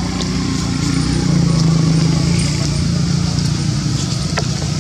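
A steady low engine rumble, swelling a little about a second in and easing off toward the end, with a steady high hiss above it and a faint click near the end.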